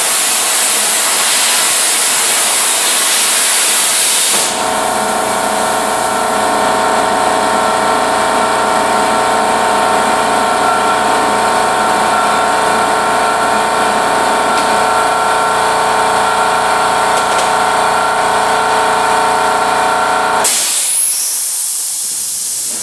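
Everlast Power Plasma 50 plasma cutter cutting steel plate: a loud, steady hiss of air and arc. About four seconds in, a steady hum of several tones joins it. It cuts off about two seconds before the end, leaving a short fading hiss of air. The torch's consumables are worn, which the operator blames for a rough cut.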